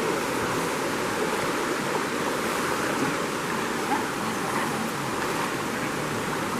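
River water rushing steadily: an even, unbroken roar of moving water.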